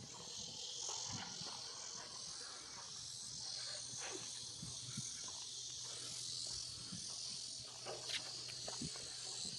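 Steady high-pitched chorus of insects, with a faint low hum and a few soft knocks.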